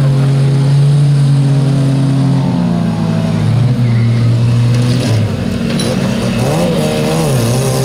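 Stock car engine running loud at steady revs, then easing off and revving down and up again in the last couple of seconds.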